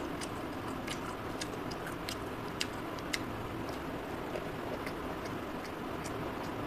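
A person eating chicken curry by hand and chewing: small wet mouth clicks and lip smacks scattered irregularly over a steady background hiss.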